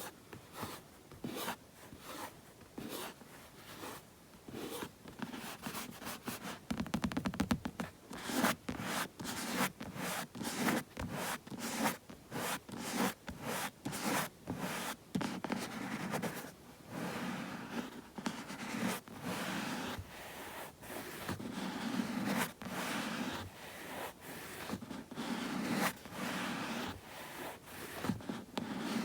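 Bare hands rubbing and rustling together in quick, scratchy strokes, mixed with sharp finger taps. About seven seconds in, a run of very fast strokes comes, and after it the rubbing swishes grow fuller.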